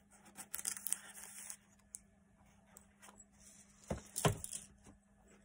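Paper rustling and sliding as a card tag is slipped into a paper pocket in a handmade journal, with small clicks of handled paper. Two sharp knocks about four seconds in, a quarter second apart.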